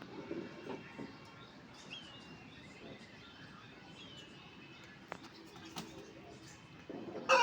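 Faint outdoor background with two short, falling chirps from a small bird about two and four seconds in, and a few soft taps. Right at the end a rooster begins a loud crow.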